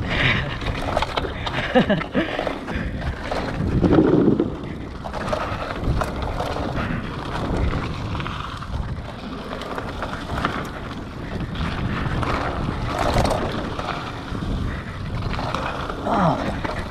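Scott Scale 970 hardtail mountain bike rolling down a dirt trail: tyres on dirt and irregular knocks and rattles over bumps, with wind on the microphone.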